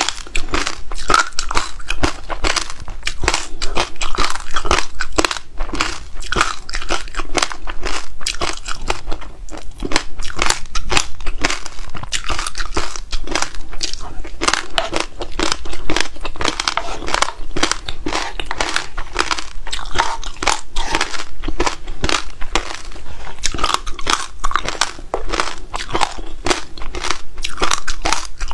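Close-miked crunching and chewing of frozen passion fruit pulp, its many hard black seeds cracking between the teeth in a dense, irregular crackle, with the wet squish of the pulp.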